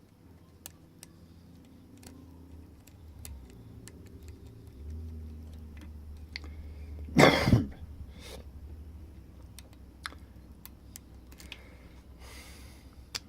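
Faint scattered ticks of a lock pick and tension wrench working the pins of a 245 padlock. About seven seconds in, a person clears their throat loudly, in two quick pushes.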